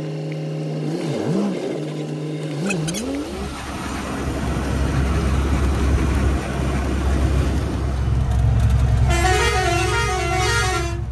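Truck diesel engine heard from inside the cab, running steadily with two short dips, then pulling away about three seconds in and running on with a loud low road rumble. About nine seconds in, a multi-tone musical horn plays a short warbling tune for about two seconds.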